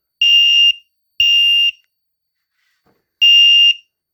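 Fire alarm sounder beeping a loud high tone in the temporal-3 evacuation pattern. Two half-second beeps come about a second apart, then a pause of about a second and a half, then one more beep that starts the next group of three.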